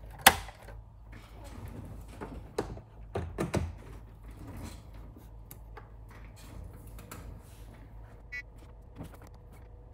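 A sharp click as the Olivetti M380-40's power switch is pressed, then a low steady hum with a few quieter clicks and knocks, and one short beep near the end as the 386 computer starts up.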